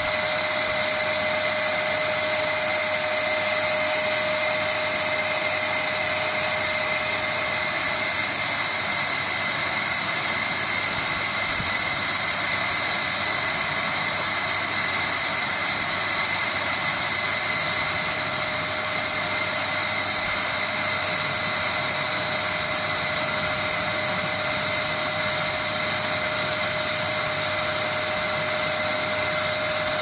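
Canister vacuum cleaner motor running steadily, a constant high whine over rushing air, with its exhaust vent partly covered by a sheep's mouth.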